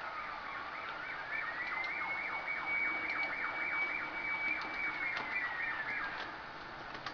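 Emergency vehicle sirens. One siren wails in a slow glide: it falls, rises about a second in, holds high and falls away about six seconds in. A second siren yelps in rapid repeated sweeps over it.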